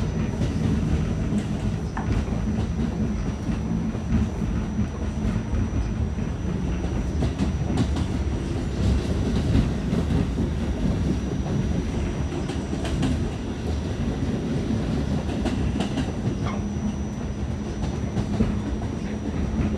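Inside an R46 subway car running between stations: steady rumble of steel wheels on rail with a low hum, a thin high tone, and scattered clicks over the rail joints.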